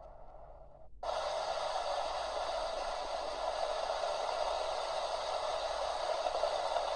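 Heavy rain falling: a steady hiss that cuts in abruptly about a second in.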